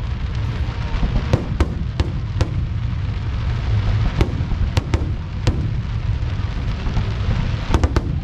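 Fireworks display: aerial shells going off as a steady low wash of booms, with sharp cracks at irregular intervals and several in quick succession near the end.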